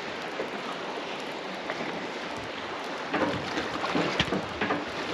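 Wind and sea water rushing and lapping around a small open boat drifting through choppy overfalls. From about three seconds in, irregular knocks and slaps break through the rush.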